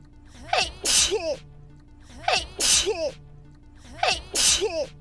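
A streamer's sneeze looped over and over, three times in a row about every second and three-quarters. Each one is a short rising 'ha' intake followed by a sharp, hissing 'choo'.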